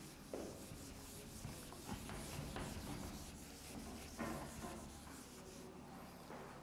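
Whiteboard eraser rubbing over a whiteboard, wiping off marker writing in faint, repeated scrubbing strokes.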